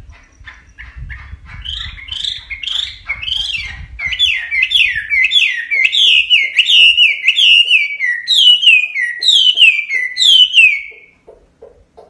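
Chinese hwamei singing: a long run of quick, downward-slurred whistled notes, growing louder through the song and stopping abruptly about eleven seconds in.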